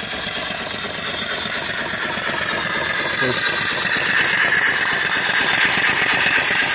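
Small single-cylinder vertical steam engine running steadily on boiler steam, with rapid even exhaust beats and a hiss of escaping steam that grows louder about four seconds in.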